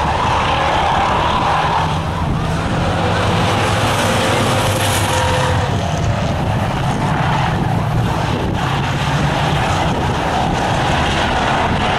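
Hobby stock race cars running at racing speed around the oval, a steady mix of several engines from the field.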